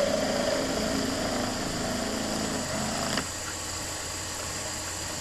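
Wood lathe running with a turning tool cutting the spinning Nordmann fir blank. The cutting sound drops away abruptly about three seconds in, leaving a quieter steady motor hum.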